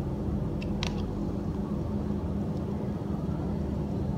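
Steady low droning hum and rumble, with a couple of faint ticks about a second in.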